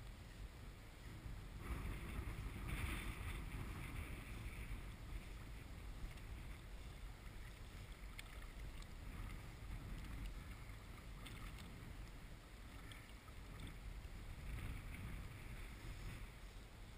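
Water lapping and sloshing around a float tube, with a low wind rumble on the microphone. The water sound swells about two seconds in and again near the end, with a few faint clicks between.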